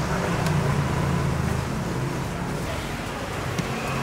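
Street traffic: a motor vehicle engine running close by, a steady low hum over general road noise.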